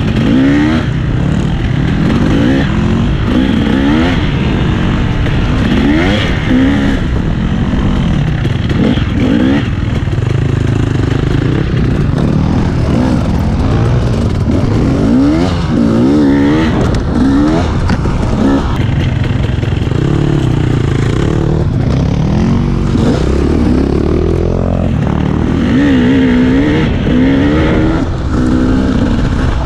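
Dirt bike engine revving up and down as it rides a rough trail, its pitch climbing and dropping again every second or two with throttle and gear changes.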